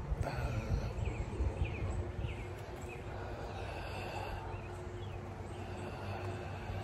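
Outdoor ambience: a bird gives short chirps over and over in the first three seconds or so, over a steady low rumble.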